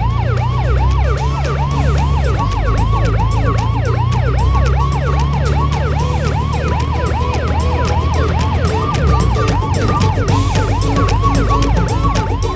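Police siren sound effect, a fast yelp of falling pitch sweeps repeating about three times a second, over a low steady rumble, dubbed onto a toy police car being pushed along.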